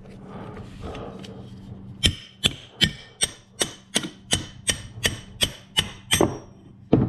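Hammer tapping a brass drift to drive a pin out of a Jaguar Mark II differential: about a dozen evenly spaced, ringing metal strikes, roughly three a second, starting about two seconds in, with light handling rustle before them.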